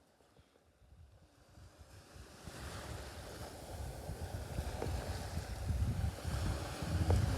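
Sea surf with wind buffeting the microphone, fading in and growing steadily louder.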